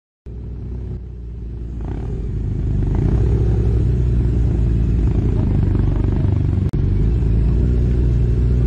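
Motorcycle engine running at low road speed, heard from the rider's own bike. It grows louder over the first three seconds and then holds steady, with one very brief drop about two-thirds of the way through.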